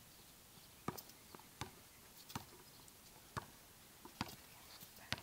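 A handful of short, sharp taps and clicks at irregular intervals over a faint steady hiss.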